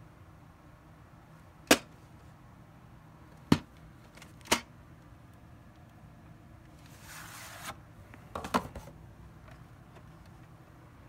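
Plastic VHS clamshell case being handled: three sharp clicks a second or two apart, a short scraping rustle about seven seconds in, then a quick cluster of clacks as the case is snapped open.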